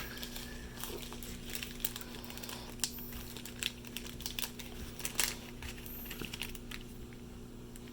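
Irregular small clicks, taps and brief rustles of small items and packaging being handled, over a steady low hum.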